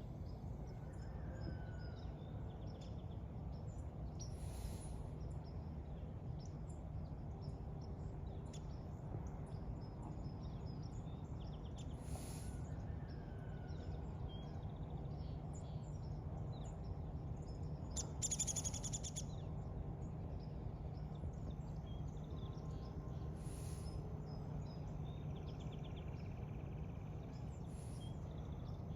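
Outdoor ambience: small birds chirping and calling throughout, with a few louder calls and the loudest about two-thirds of the way in, over a steady low rumble.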